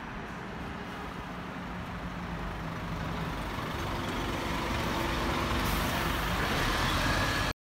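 Double-decker bus engine running as the bus pulls away and passes close by, growing steadily louder. The sound cuts off suddenly near the end.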